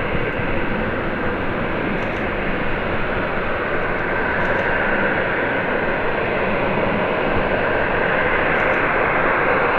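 Airbus A350-941's Rolls-Royce Trent XWB jet engines running: a steady rushing noise that slowly grows louder.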